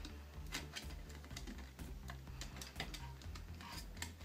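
Soft, scattered clicks and taps of hands handling wires and pressing them into place on an emergency light fitting's frame and circuit board, while the wiring is being connected.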